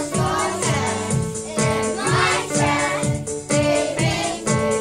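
A choir singing over backing music with a steady beat.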